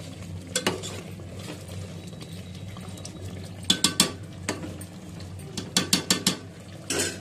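A metal spoon stirring chicken korma in a metal cooking pot, clinking and scraping against the pot's sides in short clusters, busiest around four and six seconds in.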